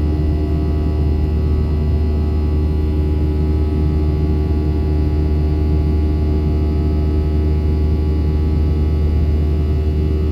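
Steady drone of a Boeing 737-800's CFM56-7B jet engines and airflow, a strong deep hum with several steady tones above it, unchanging throughout.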